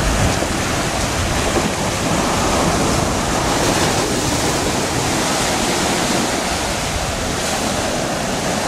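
Ocean surf breaking and washing in a steady rush, with wind rumbling on the microphone.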